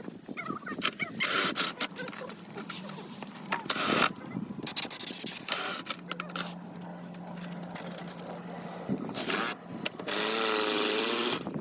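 Hand tools working on a tractor tyre: scattered scraping and knocking, with a steady low hum for about three seconds in the middle. Near the end, a loud, even hiss with a wavering tone in it lasts about a second and a half, then cuts off.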